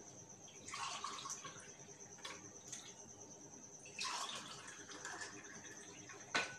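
Red sharbat poured from a glass jug into drinking glasses: two pours of splashing liquid, one about a second in and a longer one from about four seconds in, with a sharp clink near the end.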